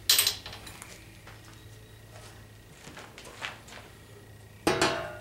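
Sharp metal clanks as steel mower parts and a sheet-metal guard are handled: one just after the start, a light tick about three and a half seconds in, and another loud clank near the end.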